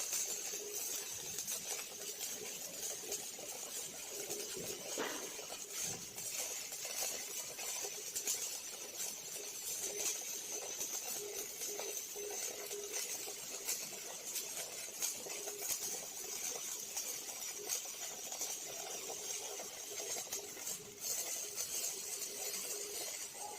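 Welding arc of a robotic welder crackling and sputtering steadily, a dense stream of fine clicks with a faint steady hum underneath.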